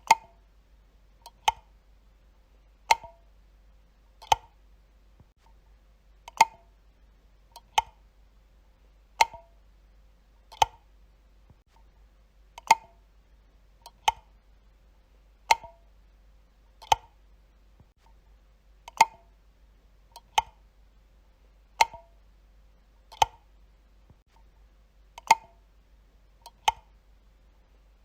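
Light switch flicked repeatedly: crisp single clicks about every second and a half, in runs of four with a slightly longer pause between runs.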